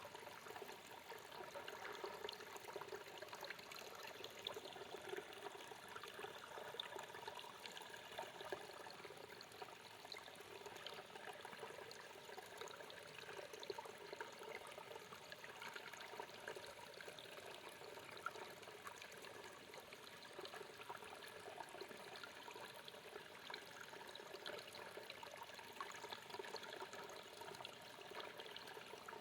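Mountain stream babbling and trickling over rocks, a steady, even rush of water.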